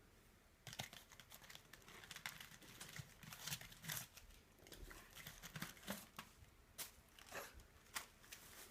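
Packaging crinkling and tearing as it is handled and pulled open: a quick run of crackly rustles that starts about a second in, with louder rips now and then.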